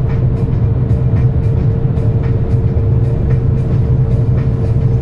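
Truck cab at highway speed: a steady engine and road drone with a constant hum above it. Music with a regular beat plays along with it.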